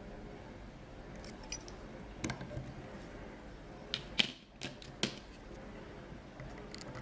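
Lock pick and tension wrench working in a US Reese pin-tumbler padlock: a few sharp metallic clicks and taps, the loudest just after four seconds, as the pins are picked again from the start.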